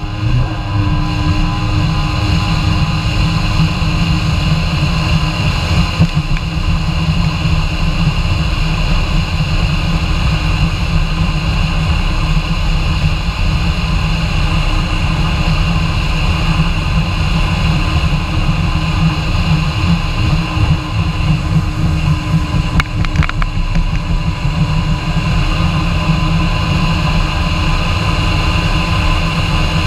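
Kawasaki Ultra 150 jet ski's two-stroke three-cylinder engine running steadily while the craft cruises over the water, with the rush of water under the hull.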